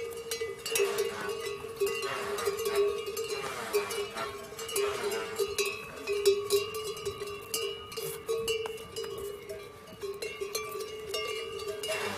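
Bells on a string of pack yaks clanging as the animals walk past, many overlapping strikes over a steady ringing tone.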